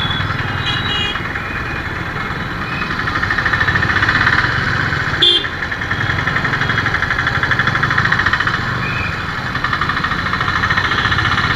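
Slow city traffic heard from a motorcycle: engines of the bike and the auto-rickshaws and motorbikes around it running at low speed. Brief horn toots sound near the start and once about five seconds in.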